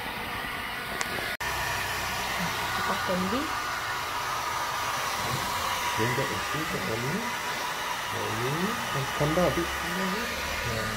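Handheld electric hair dryer blowing steadily, drying a freshly bathed cat's wet fur. The sound drops out for an instant about a second and a half in, then the dryer carries on.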